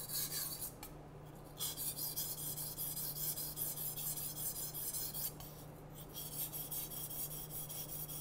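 Steel kitchen knife blade scraping back and forth on a wet 1000-grit whetstone in quick, even strokes. Two short pauses, about a second in and near six seconds, as the blade is shifted to the next section.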